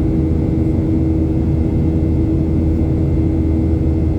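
Steady cabin drone of a Boeing 737-800 in flight: airflow rush and the hum of its CFM56-7B turbofan engines, with a steady low hum and a steady mid-pitched tone running under it.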